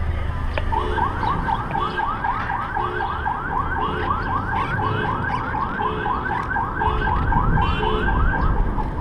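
Electronic siren tone sounding in quick rising sweeps, about three or four a second, starting a little under a second in and stopping near the end, over low wind and traffic rumble.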